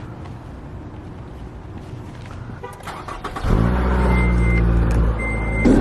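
A vehicle engine starts about three and a half seconds in and keeps running, after a few clicks. Two short, high-pitched beeps sound while it runs.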